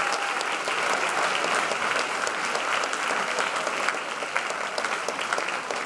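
Audience applauding, many hands clapping together, growing a little quieter near the end.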